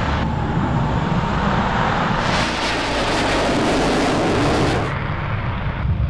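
Jet aircraft engine noise: a loud, steady roar with a heavy low rumble. It changes abruptly about 0.2, 2 and 5 seconds in as different clips cut together.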